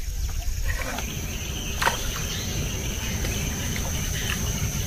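Steady high-pitched insect chorus, crickets or cicadas, over a low rumble, with a single sharp click a little under two seconds in.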